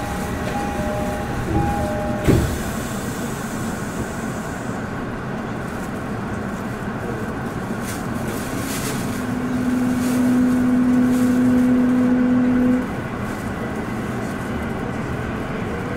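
Inside a Tokyo Metro Ginza Line 1000-series subway car: a two-tone door chime sounds at the start, and a door thuds shut about two seconds in. Then comes the car's steady rumble as it pulls out of the station, with a steady low hum for about four seconds in the middle.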